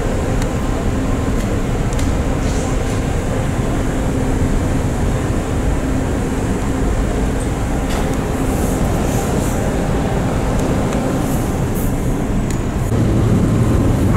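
Ferry's engines rumbling steadily with a faint steady hum while the ship manoeuvres against its berth, swelling louder near the end.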